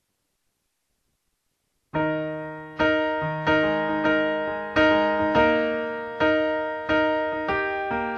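Silence, then about two seconds in a pop song's piano intro begins: repeated piano chords struck about every half second to a second, each dying away before the next.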